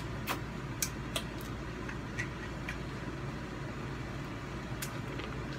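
A steady low hum, with a scattering of small sharp clicks and crunches, about eight in all.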